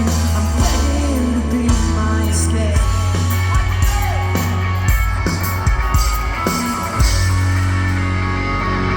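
Rock band playing a song live at full volume, with a singer over a sustained bass line and steady drum hits.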